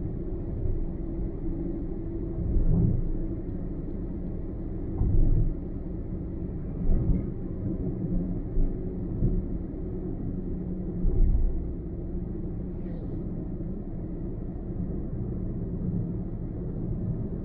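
Car driving at highway speed: a steady low rumble of tyres and engine, with a few louder low thumps and surges along the way.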